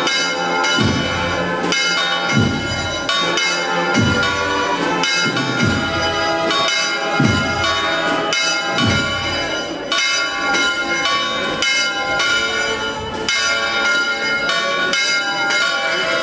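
Church bells ringing continuously, struck over and over so that their tones overlap and ring on. A deep strike comes about every second and a half for the first ten seconds.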